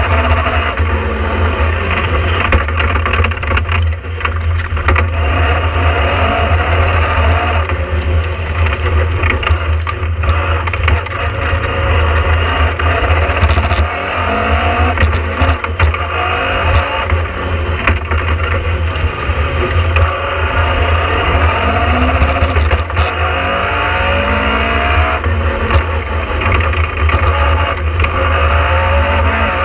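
Talbot Sunbeam rally car's Vauxhall 2.0 four-cylinder engine heard from inside the cabin, driven hard and revving up and down as it changes between first and second gear, over a heavy low drone.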